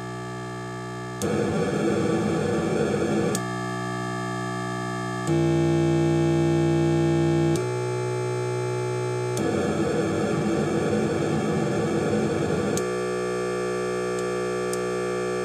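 Rob Hordijk Rungler synthesizer module's pulsed output running at audio rate: a dense buzz of many tones that changes abruptly about every two seconds, alternating between a steady pitched drone and a grainy, noisy texture as its random/sparse/dense switch is flipped.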